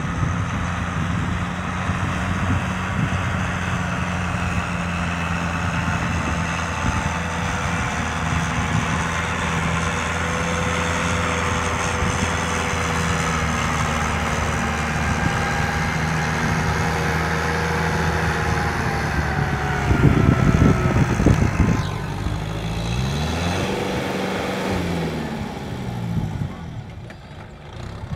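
Kubota M6040 SU tractor's diesel engine running steadily under ploughing load. About two-thirds of the way through come a couple of seconds of loud low thumps, then the engine note falls and rises a few times as the revs change.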